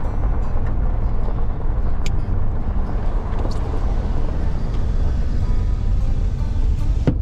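Pickup truck driving, its engine and tyre rumble heard steadily from inside the cab.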